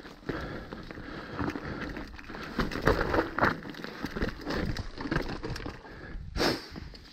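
Mountain bike rolling down a rocky trail: tyres crunching over stones, with irregular knocks and rattles from the bike.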